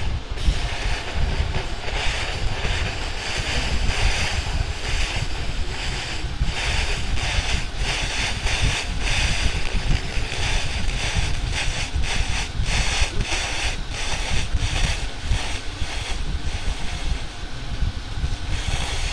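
200 W pulsed laser cleaner ablating paint from a steel car panel: a dense crackling hiss that swells and fades as the beam sweeps the surface, over a steady low rumble.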